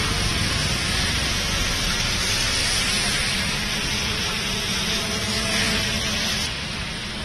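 Heavy rain falling on a waterlogged road: a steady, dense hiss that eases slightly near the end.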